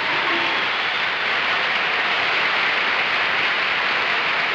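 Studio audience applauding, a dense and steady sound of many hands clapping.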